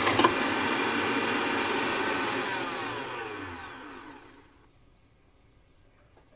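Stand mixer's motor running with its balloon whisk beating cake batter, then switched off. The whine falls in pitch and fades away over about three seconds as the whisk spins down.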